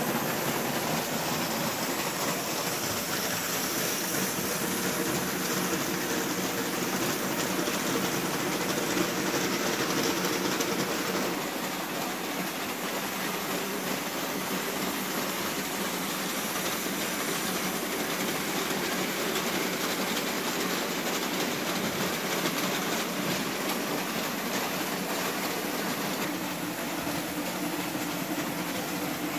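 Model trains running on metal track: a steady whirr and rattle of small motors and wheels over the rails, a little quieter after about eleven seconds.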